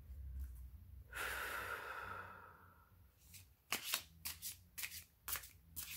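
A deck of tarot cards being shuffled by hand: a soft rush of sliding cards for about a second and a half, then a quick run of light card clicks and taps.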